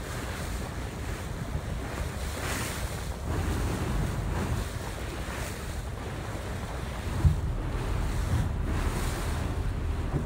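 Wind buffeting a phone microphone over the wash of open sea water around a small boat, a steady low rumble with a short thump about seven seconds in.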